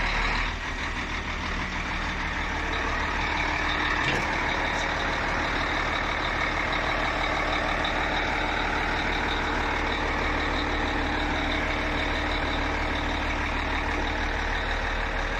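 Truck engine and the hydraulics of a lorry-mounted Atlas crane running steadily while the crane holds and lifts a load: an even mechanical drone with a faint high whine.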